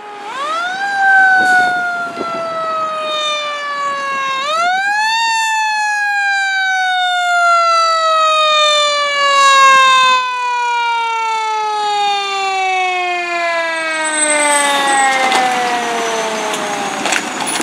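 Fire truck siren on a 2015 E-One Quest 100-foot rear-mount aerial ladder truck, sounding on an emergency run. It climbs quickly, sinks slowly, climbs again about four seconds in, then sinks slowly for a long stretch before fading near the end.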